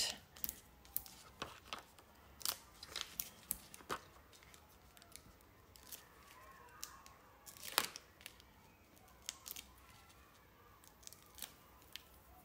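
Foam adhesive dots being peeled from their backing paper and pressed onto cardstock: a string of faint, irregular paper clicks and ticks, the sharpest about eight seconds in.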